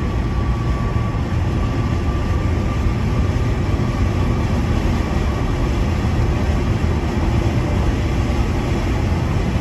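Steady, loud road and wind noise inside a car cabin at highway speed, with wind rushing in through the car's broken windshield.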